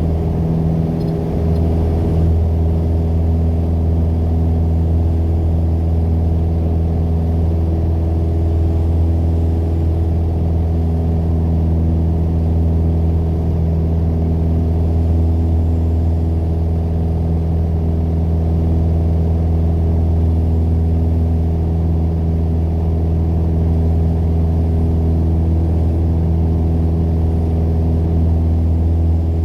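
Piper PA-28 Warrior's four-cylinder Lycoming engine running at a steady, unchanging pitch.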